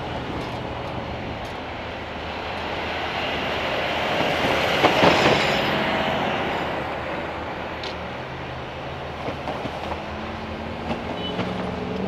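Heavy road traffic driving across a railroad grade crossing. A refuse truck passes close by about five seconds in, swelling up and fading away, with a few knocks of tyres over the rails later on. A diesel locomotive's engine runs steadily underneath.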